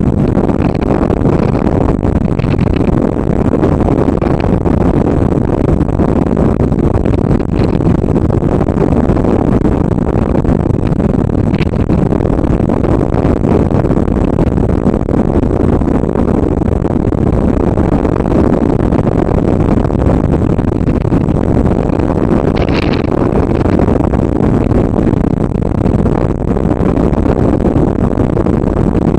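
Steady wind roar and buffeting on the microphone of a wing-mounted camera as a hang glider flies through the air.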